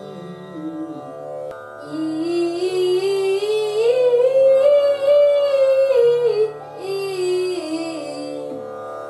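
Sapat taan vocal exercise: one voice, sung on a vowel, climbs a scale in a single breath and comes back down. It starts about one and a half seconds in, peaks about halfway through and settles low again near the end, over a steady drone.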